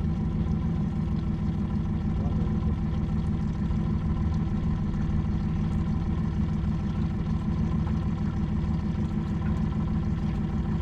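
Boat motor running steadily at a constant speed, an even hum with no change in pitch.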